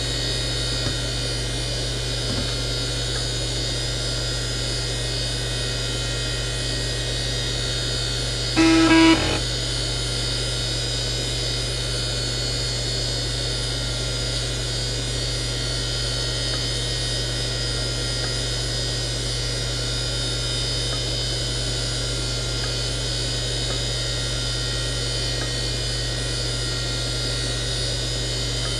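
Seagate Barracuda 18XL SCSI hard drive spinning at 7,200 RPM: a steady low hum under a high ball-bearing whine, with its access sounds drowned out. About nine seconds in comes one short electronic beep, the computer's power-on self-test beep.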